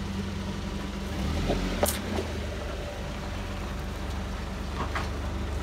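A motor vehicle's engine running steadily at idle, with a slight swell about a second and a half in and a couple of light clicks.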